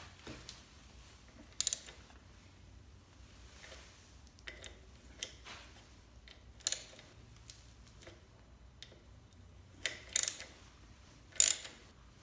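Socket ratchet wrench clicking in short, sharp bursts a few seconds apart while loosening the compressor's oil drain screw; the loudest clicks come near the end.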